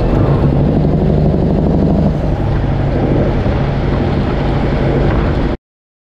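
Road train truck's diesel engine running on the move, a steady low drone that cuts off suddenly near the end.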